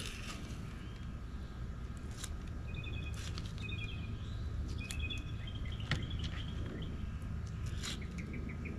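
Small birds chirping in short repeated phrases over a steady low outdoor background noise, with a few sharp clicks scattered through.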